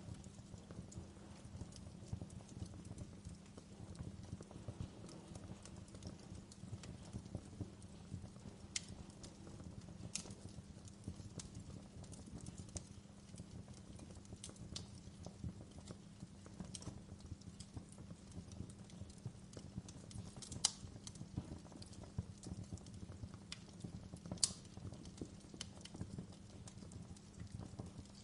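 Wood fire burning in a fireplace: a steady low rumble of the flames under an irregular scatter of sharp crackles and pops, two of them louder than the rest about two-thirds of the way through.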